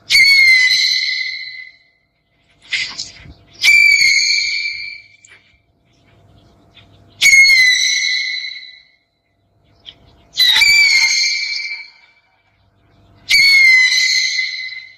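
An owl calling five times, a high whistled screech every three seconds or so, each call starting sharply and trailing off over about a second and a half.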